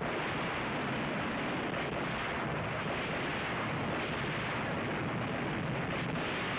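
Battle sound effects of naval gunfire: a steady, dense roar of guns with no single shot standing out.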